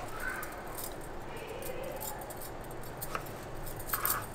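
Kitchen knife slicing chayote (chow chow) on a wooden cutting board: quiet cuts with a few short, sharp clicks and clinks, about one a second.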